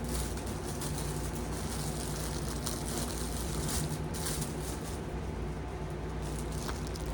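A steady low hum with a few faint, brief clicks.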